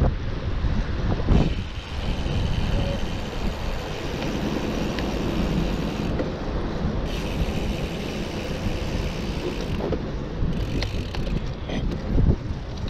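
Wind rushing over the microphone of a moving gravel bike, with tyre noise on the asphalt path beneath. The wind surges louder about a second in and again near the end.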